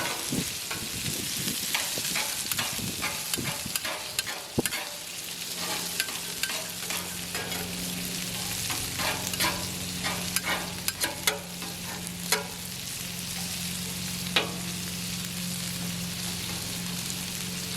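Hot dogs sizzling on a Blackstone steel griddle while they are chopped with a metal spatula, with sharp irregular clicks and scrapes of metal striking the cooktop over a steady frying hiss.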